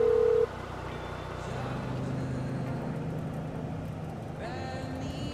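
Music cuts off about half a second in, giving way to the steady drone of an open-top Jeep on the road: engine hum with road and wind noise.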